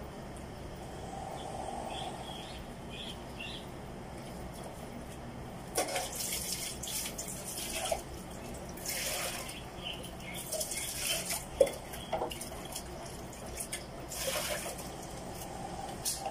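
Eating with the mouth close to the microphone: wet, crunchy chewing and lip-smacking in short bursts every second or two, starting about six seconds in, with a few sharp clicks, the loudest about halfway through the bursts.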